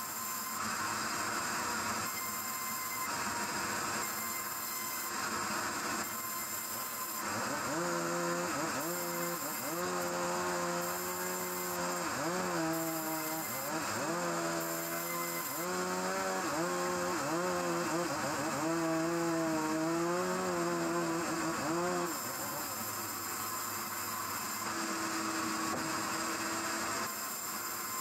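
Band sawmill running and cutting timber. Through the middle a pitched whine rises and falls repeatedly, then it settles to a short steady tone near the end.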